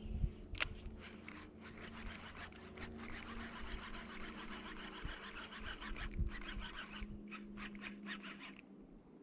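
Fishing reel being cranked to retrieve a crankbait, a fine scratchy whirring that runs for several seconds and stops near the end, after a single sharp click about half a second in.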